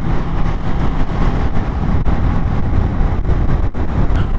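Motorcycle riding along the road, heard from the rider: a steady low rumble of engine and wind rush on the microphone, with no gear changes or sudden events.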